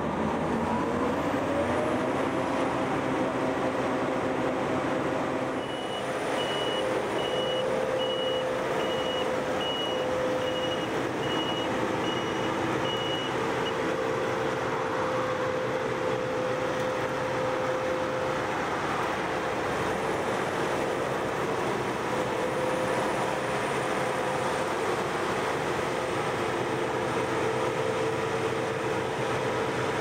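Claas Lexion combine harvester running at working speed, a steady droning machine noise whose pitch rises during the first couple of seconds and then holds. From about six to fourteen seconds a reversing alarm beeps regularly, roughly once a second.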